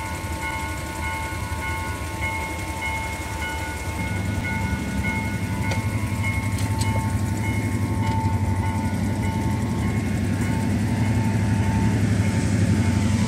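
Railway level-crossing warning alarm sounding in a steady repeating pattern, with the low rumble of an approaching train growing louder from about four seconds in.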